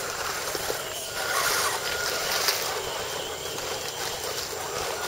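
Electric motor and gears of a 1/10-scale RC crawler whining faintly as it climbs a dirt rut, over a steady hiss.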